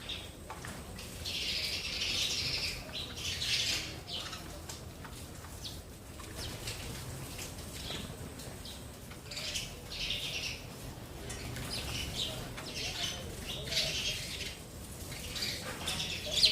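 Sparrows chirping in short, repeated bursts of high chatter, every second or two.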